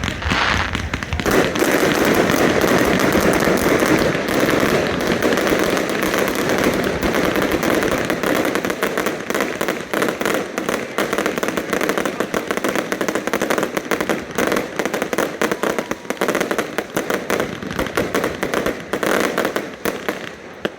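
Aerial fireworks display: a dense, continuous barrage of bangs and crackles, heaviest in the first few seconds.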